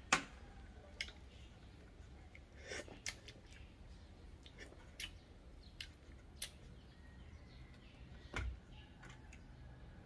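Balut (fertilised duck egg) shell being cracked and picked off by hand: scattered small sharp clicks and crackles at an uneven pace, with a duller knock about eight seconds in.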